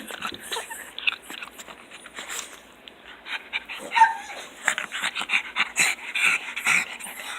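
Pugs making excited greeting noises: quick snorting, panting bursts and whimpers, with one loud whining squeal about four seconds in.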